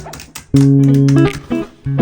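Background music of plucked guitar over held bass notes, with a new chord coming in about half a second in.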